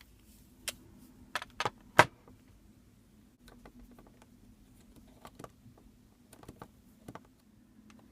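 Handling noise from a homemade plastic prop sword: a run of sharp clicks and knocks, the loudest about two seconds in, then fainter scattered clicks, over a faint steady low hum.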